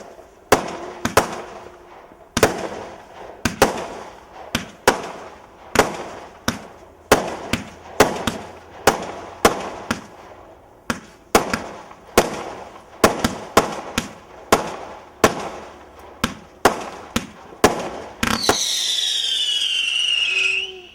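Fireworks going off: a rapid string of sharp bangs, one every half second to a second, each with a short fading tail. Near the end a loud whistle sliding down in pitch for about two seconds, then cutting off.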